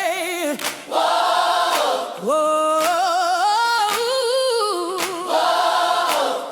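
Gospel choir singing long, gliding wordless notes almost a cappella, with only faint percussive ticks about once a second and no bass.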